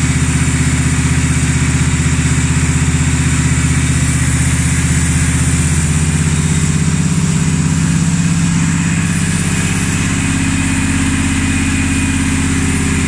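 Honda riding mower's engine running steadily while it drives the raised rear wheel through a freshly cleaned and rebuilt Tuff Torq K46 hydrostatic transaxle on a test run; the engine note shifts to a slightly different pitch about halfway through.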